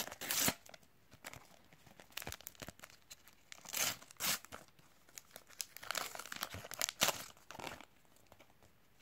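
A sticker packet's wrapper being torn open and crinkled by hand, in several short crinkly bursts, as the stickers are pulled out.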